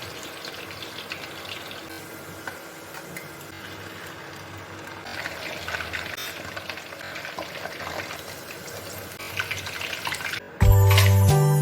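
Water running from a tap into a sink, with small clinks and clatters. Near the end, background music starts abruptly and is louder than the water.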